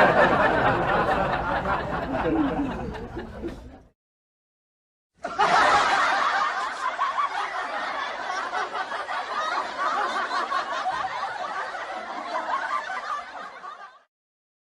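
Two laughter sound-effect clips separated by about a second of silence. The first fades out about four seconds in. The second, dense and steady like many people laughing together, is a crowd or audience laugh track that stops shortly before the end.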